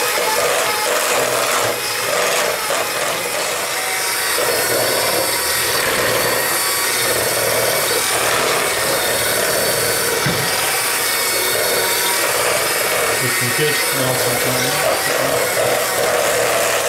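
Electric hand mixer running steadily, its twin beaters whisking a butter, cream cheese and icing sugar filling in a stainless steel bowl until it turns fluffy.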